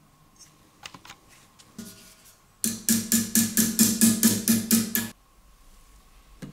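A small hammer tapping a steel punch against the pressed sheet-metal tank of a 1950s Chalwyn oil lantern: about a dozen quick taps, roughly five a second, each ringing with the same note, after a few light clicks. The tapping stops suddenly a little after halfway through.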